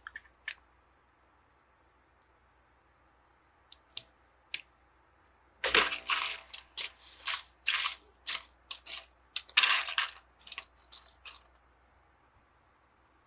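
Plastic Lego pieces clicking and clattering as they are handled and sifted through. There are a few scattered clicks around four seconds in, then a dense run of rattling from about six to eleven and a half seconds.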